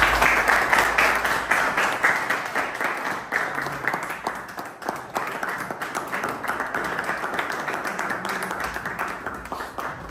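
A small group of people clapping and applauding. The clapping starts suddenly and eases off a little toward the end.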